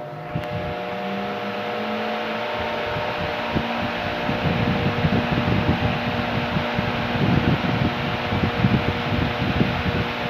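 Solaster Veneza Plus 70 cm 270 W fan spinning up, its motor humming with a steady tone over a rising rush of air. From about four seconds in, a low fluttering buffet from the blades' airflow grows, with a single click near the start.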